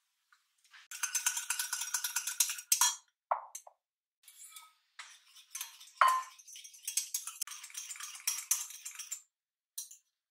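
A whisk clinking rapidly against a small pot, whisking egg yolk, lemon juice and salt into a hollandaise-style sauce. It comes in two spells, with a few short knocks between.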